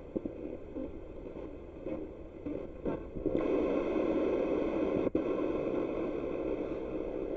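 Spirit box (a radio scanner sweeping through stations) giving out radio static. The hiss grows louder about three and a half seconds in, with a momentary cutout about five seconds in.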